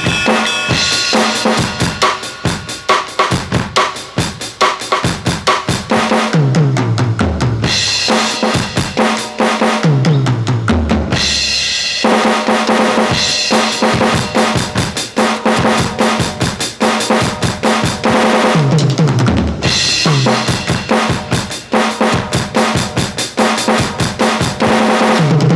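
Aroma TDX-15S electronic drum kit played on its punk kit preset: a fast beat of kick, snare and cymbals, broken several times by tom fills that run down from high to low toms.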